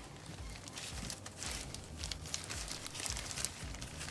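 Disposable plastic gloves crinkling as hands dredge a stuffed shrimp in a bowl of flour, with soft patting and scratchy rustles.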